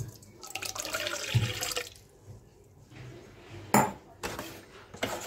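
Orange juice poured from a glass into a stainless steel mixing bowl, splashing for about a second and a half, followed later by one sharp knock and a couple of lighter clicks near the end.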